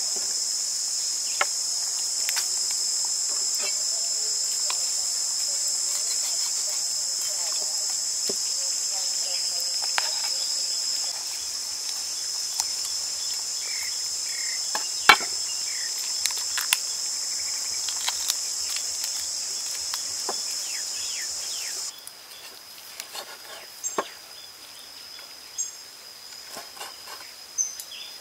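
A steady, high-pitched shrill of insects, which thins out abruptly about two-thirds of the way in. Over it come scattered sharp knocks of a knife and cleaver cutting cooked duck on a wooden chopping board, more frequent near the end.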